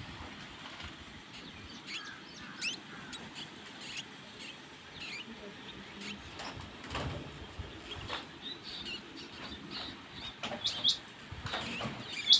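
Newborn mouse pups squeaking: short, thin, high-pitched chirps at irregular intervals, with a few soft clicks and light rustling.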